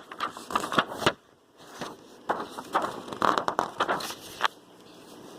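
Handling noise: rustling and scraping with short clicks, in two stretches with a brief quiet gap between.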